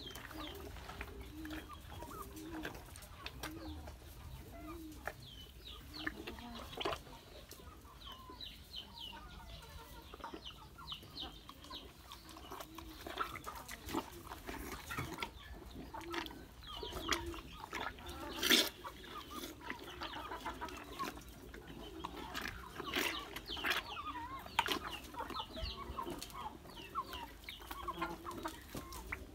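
Chickens clucking over and over, with a bull slurping and munching wet chopped greens from a plastic basin. A single sharp knock sounds a little past halfway.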